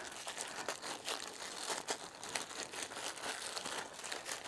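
Hands rubbing Sno-Seal wax into an insulated leather work glove: quiet, irregular scuffing and rubbing of leather with many small clicks.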